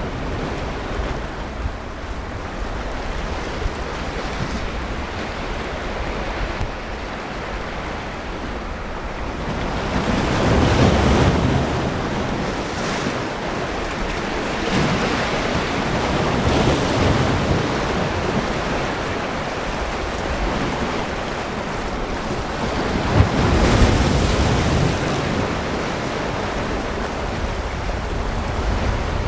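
Sea waves breaking on a beach and washing up the shore, the surf swelling louder every several seconds, with some wind noise on the microphone.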